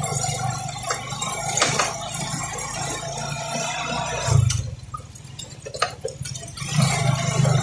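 Motorcycle engine running while riding over a rough dirt road, with wind and rattling; the engine sound drops away for about two seconds past the middle, then picks up again.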